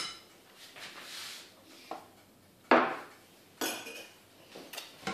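A spoon knocking and scraping against a glass mixing bowl as mascarpone is spooned into the cream: a few separate clinks and knocks, the loudest about two and a half seconds in.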